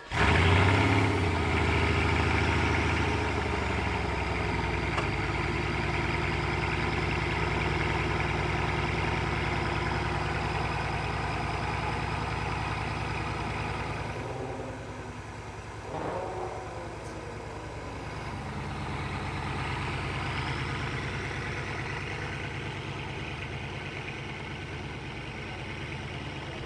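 Bugatti Veyron's 8.0-litre quad-turbo W16 catching and flaring up loudly at the start, then settling into a steady idle. The idle drops lower a few seconds in, again about eighteen seconds in, with a brief small rise just before that second drop.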